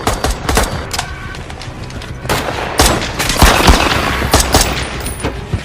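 Gunfight sound effects in a film: scattered gunshots at first, then rapid automatic-weapon fire from about two seconds in.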